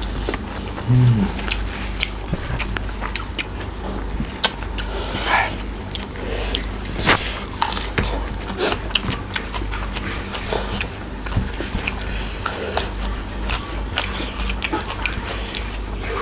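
Close-up eating sounds of two people chewing rice and pork curry eaten by hand: repeated wet mouth clicks and smacks. A short, low hum from a voice comes about a second in.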